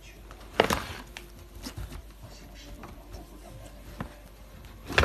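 Wire pet cage rattling and clanking as a baby monkey climbs on its bars: two loud rattles, about half a second in and again near the end, with lighter knocks between.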